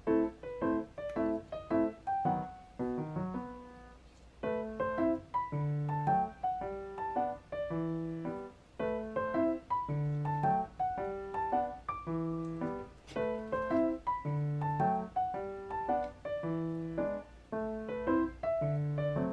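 Background music: a light piano tune of short, evenly paced notes in a repeating pattern.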